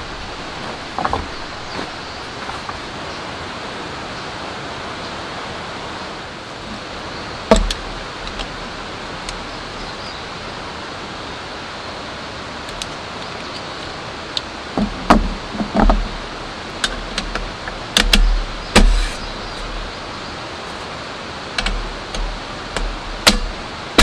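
Steady hiss of rain, with sharp clicks and knocks from a folding backpacking table's metal frame and slatted top being put together: one knock about a third of the way in, then a run of them through the second half.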